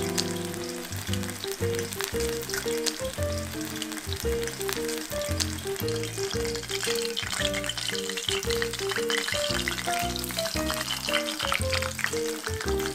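Hot oil bubbling and crackling steadily around a whole potato-starch-coated chicken thigh deep-frying in a shallow pan, with the crackle a little stronger past the middle. Soft background music plays throughout.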